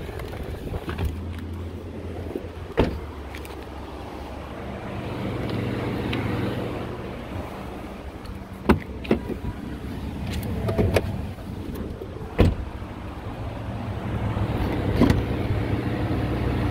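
A 2017 Ford F-150 pickup's engine idling steadily, with several sharp knocks and clicks a few seconds apart.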